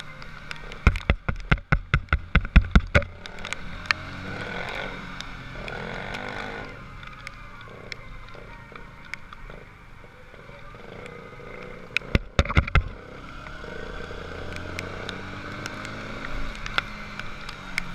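Motorcycle running as it is ridden along a wet road, with wind and road noise on the camera. A quick run of sharp knocks comes about a second in, and a few more come about twelve seconds in.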